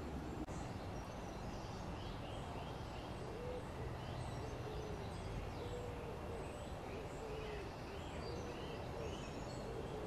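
Woodland birdsong: short high chirps and twitters from small birds. From about three seconds in, a lower call repeats roughly once a second. All of it sits over a steady low background rumble.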